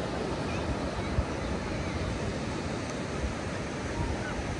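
Ocean surf washing onto a sandy beach, a steady rush of waves with wind on the microphone.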